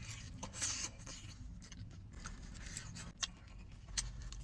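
Eating sounds: a utensil scraping and clicking against a food bowl, with a few sharp clicks, the loudest near the end.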